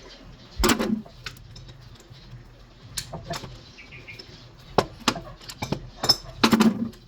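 Irregular metallic clinks and knocks from hand tools handled on metal, with two heavier knocks, one about a second in and one near the end.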